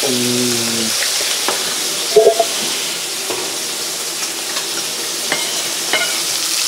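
Steady frying sizzle from food cooking on the stove, with a few sharp knife taps on a wooden cutting board as boiled boar meat is chopped.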